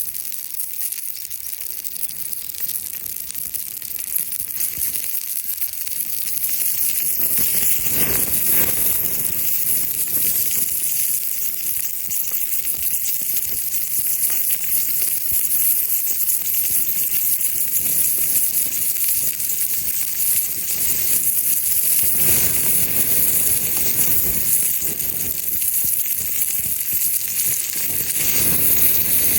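Food sizzling as it fries: a steady hiss with fine crackling that grows louder after about seven seconds.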